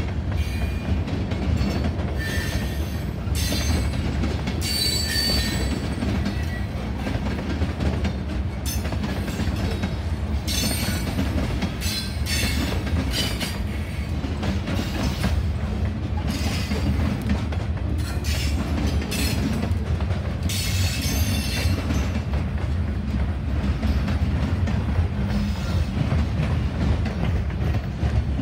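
Freight cars (tank cars, covered hoppers and coal gondolas) rolling past with a steady low rumble, their steel wheels squealing and screeching on and off through most of the stretch.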